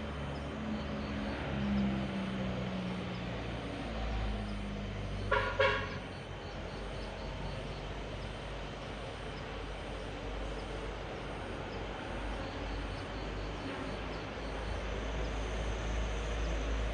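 Steady rumble of road traffic, with a vehicle horn giving two short toots about five seconds in.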